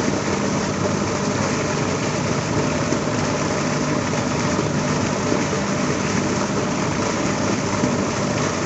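A steady, unchanging motor hum under a constant hiss.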